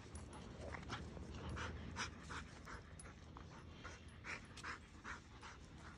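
Dog panting hard from running, quick rhythmic breaths about two to three a second, faint.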